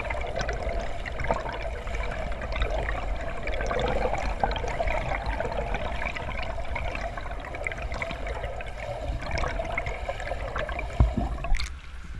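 Muffled water heard underwater as a swimmer's freestyle arm strokes and flutter kicks churn and bubble past the camera, a steady rushing. About eleven seconds in there is a sharp knock, and the sound changes abruptly as the camera breaks the surface.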